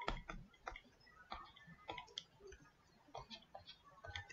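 Faint, irregular clicks and taps of a stylus pen writing on a tablet surface, a few a second, with brief light scratches between them.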